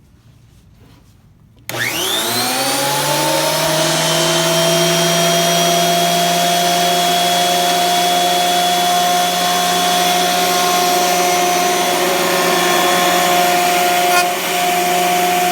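Electric wood planer switched on about two seconds in, its motor and cutterhead spinning up with a rising whine and then running steadily at full speed. The level dips briefly near the end.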